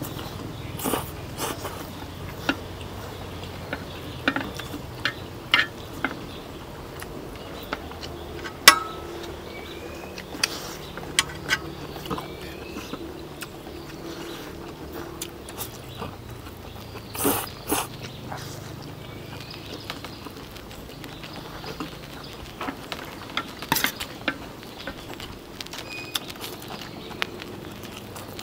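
People eating: scattered sharp clicks and clinks of utensils against plates, over a steady low hum, with faint bird chirps now and then.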